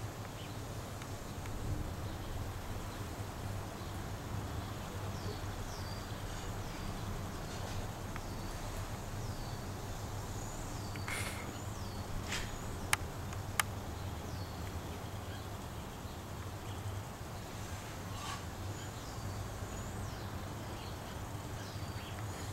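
Steady outdoor background noise with a low hum, and a bird repeatedly giving short, high, falling chirps. Two sharp clicks sound a little past halfway.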